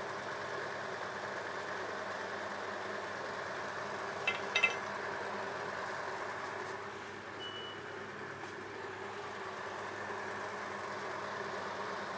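Steady mechanical background hum, like an engine running nearby, with a couple of short sharp sounds about four seconds in.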